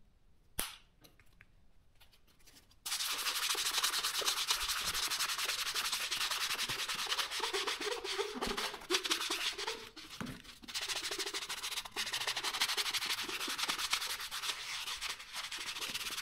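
Hands rubbing leather lotion into a leather boxing glove: a fast, continuous scrubbing that starts suddenly about three seconds in, after a single click near the start.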